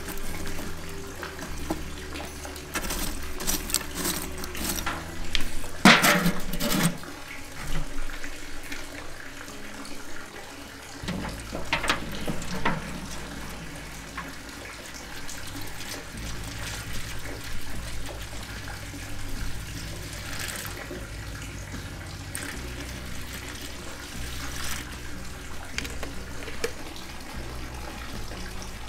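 Chunks of hickory wood and lump charcoal clattering as they are set into a ceramic kamado's firebox. A stream of water follows, pouring into an aluminium foil pan.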